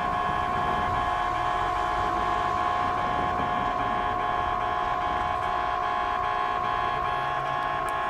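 Japanese railway level-crossing alarm ringing: an electronic two-tone bell repeating in rapid, even strokes, warning of an approaching train.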